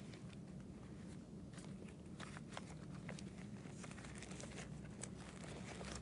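Faint rustling of papers being handled and sorted, with scattered light clicks and taps, over a low steady room hum.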